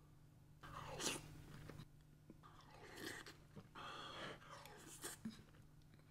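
Soft, wet squishing of a metal spoon scooping through rice, salmon roe and runny raw egg yolk in a bowl, in several short passages with a few light clicks of the spoon against the bowl.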